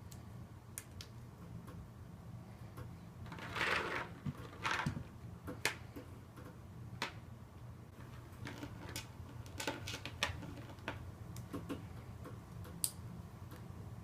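Plastic Lego bricks being handled and snapped together: scattered sharp clicks throughout, with two louder rustling, rattling bursts about four and five seconds in as parts are sorted.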